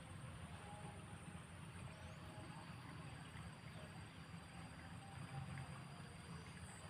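Faint outdoor ambience: a steady low rumble under a thin, high, continuous insect whine, with a second high insect chirping in short even pulses.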